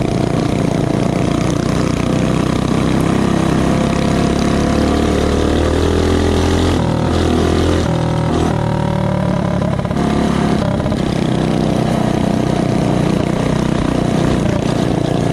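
Mini bike's small single-cylinder four-stroke engine running at high revs under way, its pitch climbing over the first several seconds, dropping briefly about eight seconds in, then rising again and holding steady.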